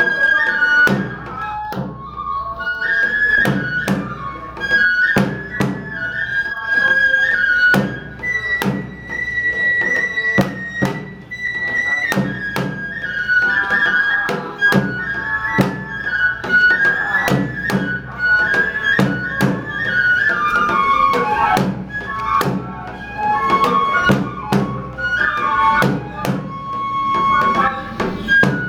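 Shinto kagura music: a Japanese bamboo flute plays a high, wavering melody over frequent drum strikes.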